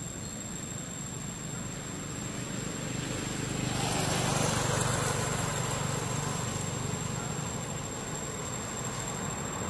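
A road vehicle driving past: its noise builds about three seconds in, is loudest around the middle, and then fades.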